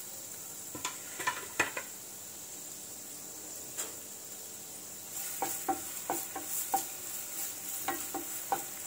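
Chopped garlic and ginger sizzling in oil in a nonstick frying pan. A few light knocks come in the first two seconds, then from about five seconds in a wooden spatula stirs and scrapes against the pan, about three strokes a second in two short runs.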